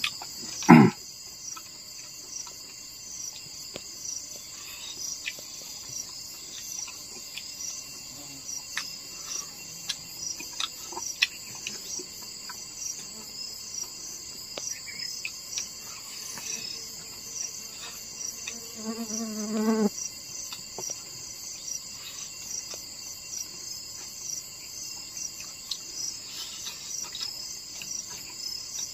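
Steady high-pitched insect chorus with a pulsing trill above it. A thump about a second in, scattered light clicks and knocks, and a brief low pitched sound lasting about a second roughly two-thirds of the way through.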